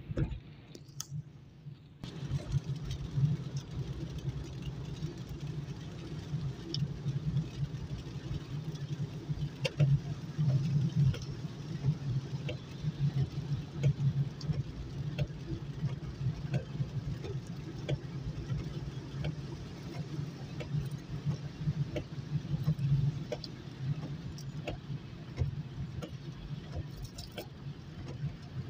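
Car cabin sound while driving in the rain: a steady low rumble of engine and tyres on the wet road, with scattered light ticks of rain on the glass. It comes in fully about two seconds in, after a brief quieter stretch.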